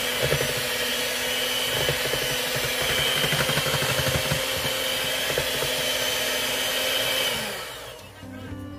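Electric hand mixer running steadily, its beaters whirring through cake batter in a metal bowl. The motor winds down and stops near the end.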